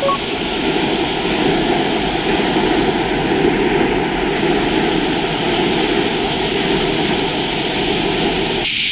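Steady rushing of river water flowing past the bank, with the river running high.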